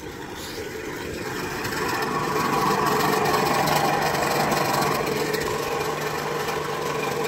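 Engine-driven water pump running steadily at a constant speed, drawing water from a well, with a rushing noise swelling about two seconds in.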